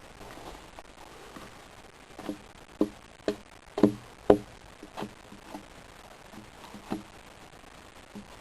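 A hand tool chopping at the bark of a log: about ten sharp knocks at uneven spacing, the two loudest a little before the middle.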